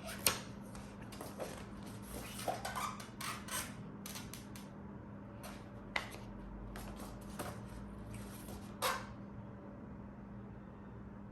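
Full-metal gas blowback airsoft pistol being handled: a string of irregular clicks and light metallic clacks, the sharpest about a quarter second in and another near six seconds, over a steady low hum.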